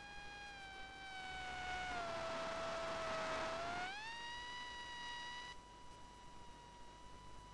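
Electric motor and pusher propeller of a FunJet foam model jet whining in flight, the pitch sagging slowly and then rising quickly about four seconds in before holding steady. A rush of air swells under the whine through the middle and stops as the pitch rises.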